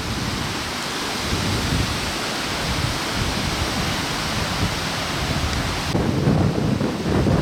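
A steady rushing hiss of storm water. About six seconds in it gives way to wind buffeting the microphone in gusty low rumbles.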